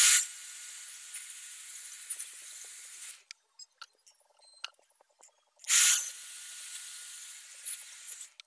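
Aerosol spray can spraying in two long bursts of about three seconds each, the second starting a little past halfway. Each hiss starts sharply, carries a faint steady whistle, and cuts off suddenly.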